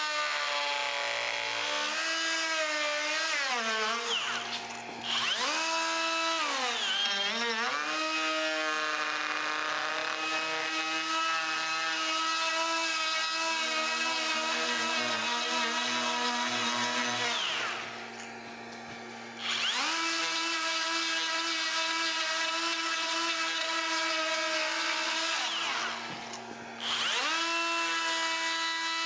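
DeWalt 20V cordless die grinder running at high speed with a carbide burr hollowing a spoon bowl in dry apple wood. The motor whine sags in pitch as the burr bites into the wood and recovers as it eases off. The grinder stops and restarts three times, briefly near 5 seconds in, for about two seconds around the middle, and again near the end.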